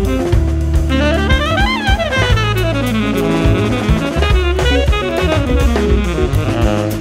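Jazz playing: a tenor saxophone solos in fast lines over plucked double bass and a drum kit with cymbals.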